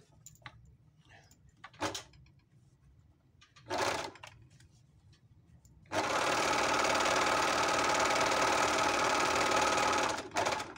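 Juki MO-50E overlock (serger) running at full speed for about four seconds, stitching an edge seam on a strip of fabric, then stopping abruptly. This is a test seam after the repair: the machine is sewing properly again. Before it, a couple of brief, faint sounds.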